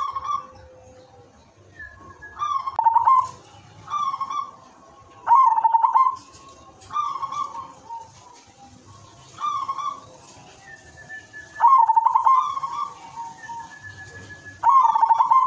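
Zebra dove (perkutut) cooing: a run of short, rippling, stuttering coo phrases repeated every couple of seconds, with softer coos in between.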